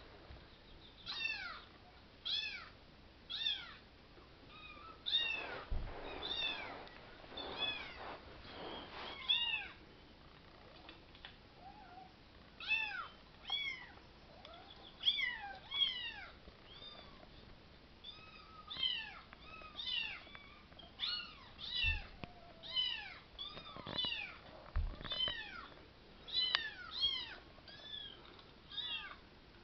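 Kittens mewing: many short, high-pitched mews that rise and fall, often overlapping, about one or two a second, with a few soft thumps among them.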